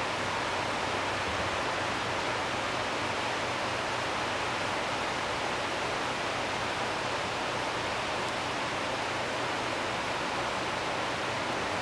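Steady, even rushing hiss that does not change in level.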